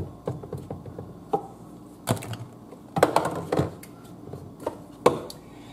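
Kitchen handling noise: spice and seasoning containers being picked up and set down on the counter, scattered sharp knocks and clicks with a small cluster about three seconds in.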